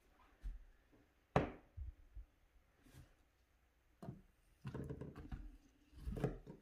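Light knocks and handling noise as a glass vase in a wicker basket is set down and shifted on a glass-topped wooden dresser. There is one sharp knock about a second and a half in, and a longer stretch of shuffling and knocking near the end.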